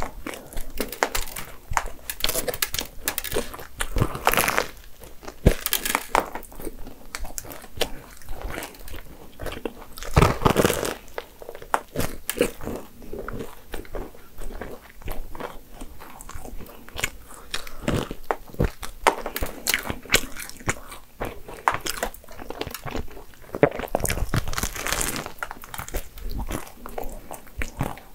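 Bites into a flaky pain au crème pastry, its crisp laminated crust crunching and crackling, with chewing in between. Several louder crunchy bites come at intervals through the stretch.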